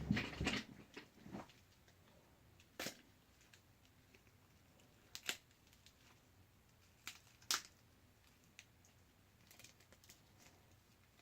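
Small crackles and sharp clicks as the shattered screen of a Samsung Galaxy S5 is pried up from the phone's frame: a dense run of crackling in the first second and a half, then a few separate clicks.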